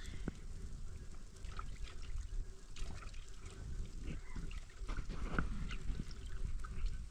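Small clinks and taps of aluminium cookware, a pot lid being handled, a few ringing briefly, over the crackle and low rumble of an open wood fire.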